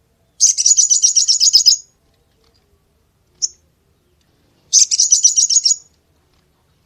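Sogok ontong bird singing: two rapid, high-pitched twittering trills, each about a second and a half long, with a single sharp chip between them.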